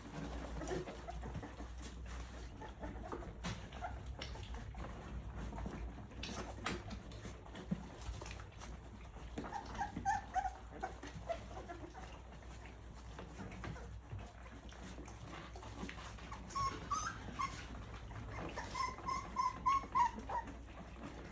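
Three-week-old Rottweiler puppies whimpering and squeaking in short high cries, a few about halfway and a quick run of them near the end, over faint small wet smacks and clicks as the litter eats mush.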